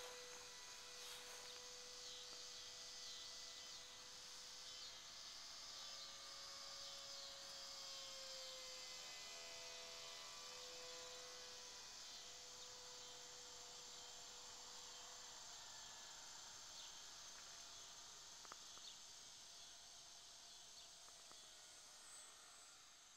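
Faint whine of a radio-controlled model biplane's motor and propeller flying overhead, drifting gently up and down in pitch, over a steady chirring of insects.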